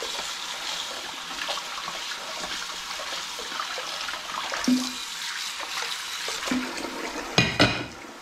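Kitchen tap running into the sink while a stoneware bowl is scrubbed with a sponge under the stream, with a couple of short squeaks. Near the end, two sharp clattering knocks as the bowl is set down on the dish rack.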